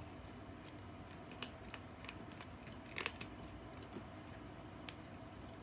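A kitten eating dry kibble from a stainless steel bowl: scattered sharp crunches and clicks, the loudest a quick cluster about three seconds in, over a faint steady hum.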